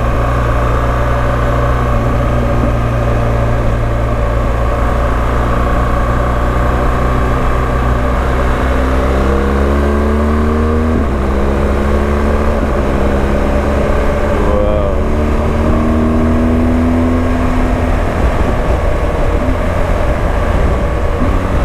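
BMW GS motorcycle engine running under way, with steady wind and road noise. About eight seconds in the engine pitch climbs as the bike accelerates, dips once at a gear change, and climbs again before settling.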